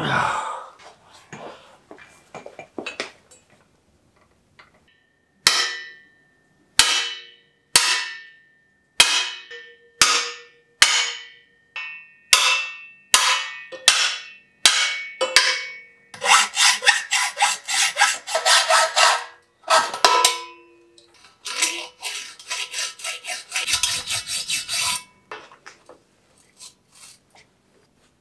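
Hammer striking a seized bicycle seat post, about eleven sharp metallic blows a little under a second apart, each ringing briefly. They are followed by two spells of rapid scraping and rattling as the stuck post is worked.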